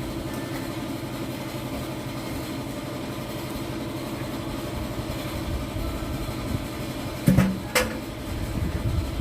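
An engine idling steadily with a low, even hum, with two sharp knocks close together about seven and a half seconds in.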